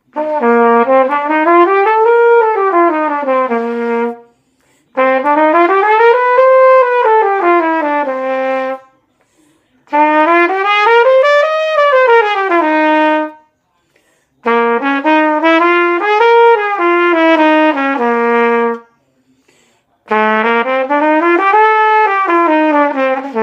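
B-flat trumpet played open, without a mute, running scales: five phrases of about four seconds each, every one climbing about an octave and coming back down, with short pauses between.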